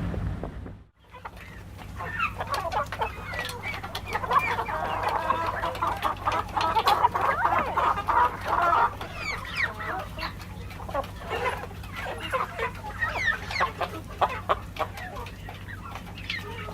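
A flock of birds calling over one another in many short, overlapping calls, with a steady low electrical hum underneath. The calls start after a brief break about a second in and are thickest in the middle.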